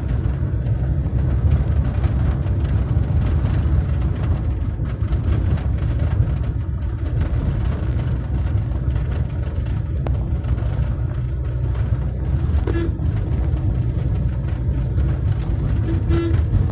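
Steady low rumble of motor vehicles, with two short pitched chirps in the second half.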